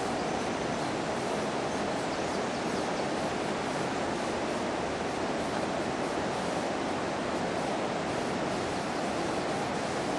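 River in flood: fast brown floodwater rushing with a steady, even noise.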